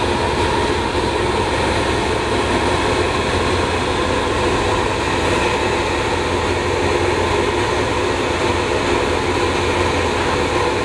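Steady, loud mechanical drone with a low hum and a few steady tones running through it, unchanging throughout.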